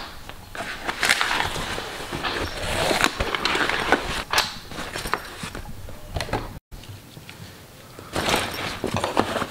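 A backpack being handled and packed: fabric rustling and scraping, with scattered knocks as gear and the bag meet the wooden floor. There is a brief break in the sound about two-thirds of the way in.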